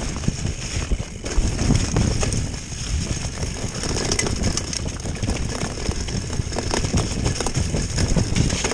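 Mountain bike descending a muddy dirt trail at speed: wind rumbling on the camera microphone, tyres on the dirt, and the bike rattling and clattering with many quick knocks over bumps and roots.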